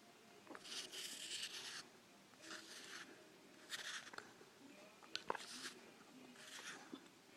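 Faint crunching of microwaved cornstarch being bitten and chewed, in about five short scratchy bursts with a few small clicks in between.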